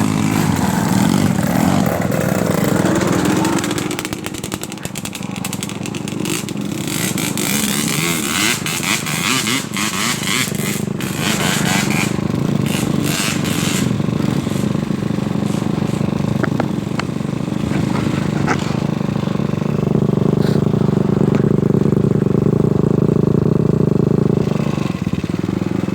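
Trail motorcycle engine running as it is ridden over a rough dirt trail, with knocks and rattles in the middle stretch. The engine holds a steadier, louder note near the end.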